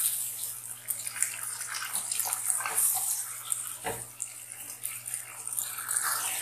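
Mixed vegetables sizzling as they are stir-fried in a non-stick kadai, with a steady hiss and the spatula scraping and knocking against the pan now and then, loudest about four seconds in.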